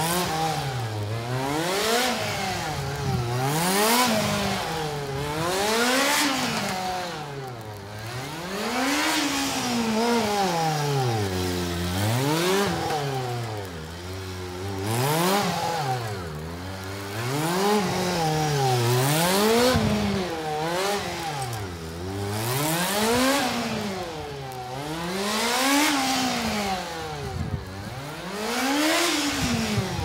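Honda CB-1's 400 cc inline-four engine revving up and dropping back again and again, about every two seconds, as the motorcycle accelerates hard out of each turn and slows for the next.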